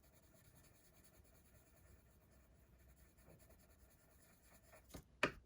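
Faint scratching of a watercolour pencil on paper as flower petals are coloured in, with a couple of sharp clicks near the end.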